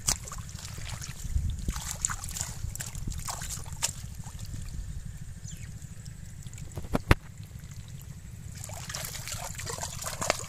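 Wet mud and shallow water trickling and splashing as hands work through mud around a plastic basket of live catfish, with scattered small splashes and one sharp click about seven seconds in.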